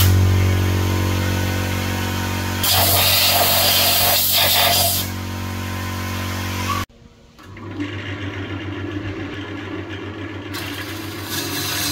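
Wood lathe motor running with a steady hum while a wooden vase blank spins, with a stretch of hiss in the middle. The sound cuts off suddenly, then the lathe runs again and, near the end, a hollowing tool scrapes wood inside the vase's mouth.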